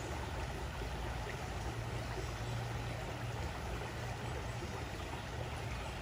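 Shallow creek running over stones: a steady, even rush of water, with a low hum underneath that swells and fades.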